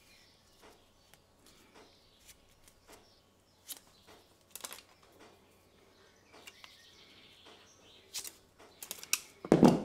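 A soldering iron handpiece being handled as a foam grip is worked onto it: faint rubbing and scattered light clicks. Near the end come a few sharper clicks and a louder snap, typical of side cutters snipping.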